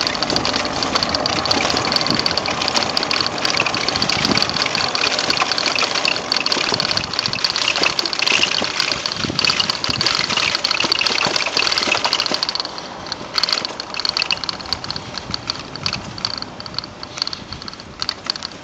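Bicycle jolting over cobblestones: a continuous dense rattle and clatter of the bike's loose parts, with a thin high ringing running through it. The clatter eases about two-thirds of the way through and becomes patchier.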